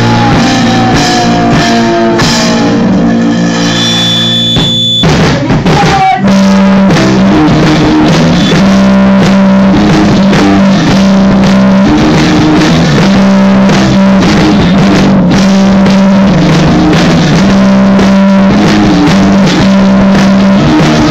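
A rock band rehearsing live, very loud: electric guitars, bass and drums. About five seconds in the playing breaks off briefly, then a new riff starts, held low notes repeating in an even pattern over the drums.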